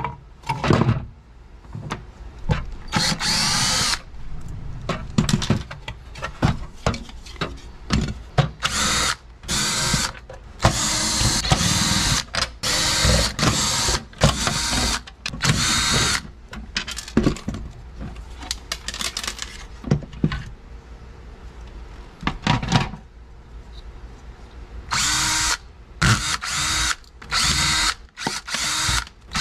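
DeWalt cordless drill/driver removing screws from a plastic blower housing and its motor. It runs in repeated short bursts, each speeding up and winding down, with clicks and clatter of screws and parts being handled between bursts.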